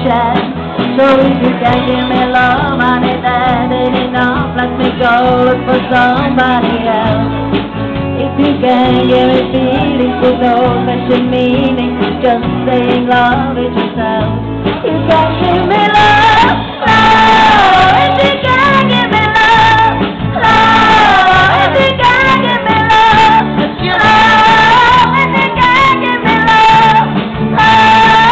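Live band playing loud, electric guitar and electric bass with singing. About halfway through, a louder high wavering melody line comes in over the top.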